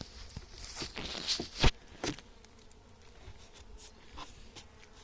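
Honeybees buzzing around an open hive. A few knocks and scrapes sound in the first two seconds, one sharp knock louder than the rest, as the hive is handled.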